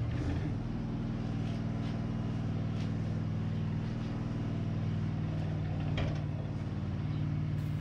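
Wood-Mizer portable sawmill's engine running steadily at constant speed, not under cutting load, with a few faint clicks.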